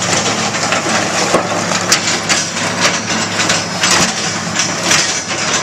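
Excavator crushing a masonry foundation: concrete block, brick and concrete crunching and cracking in irregular sharp snaps over the steady hum of the excavator's engine.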